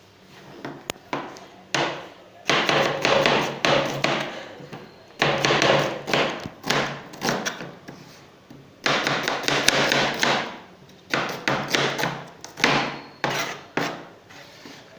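Kitchen knife chopping vegetables on a cutting board, in quick runs of strokes broken by short pauses.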